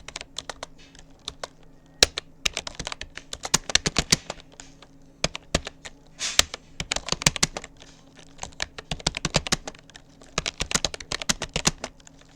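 Touch typing at speed on a Rapoo computer keyboard: quick runs of key clicks in bursts, broken by brief pauses.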